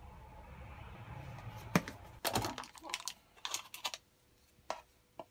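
Milk pouring from a carton into a blender bottle for the first second and a half, then a sharp knock followed by a quick run of clicks and knocks as a wooden spoon works yogurt into the bottle, with two more single clicks near the end.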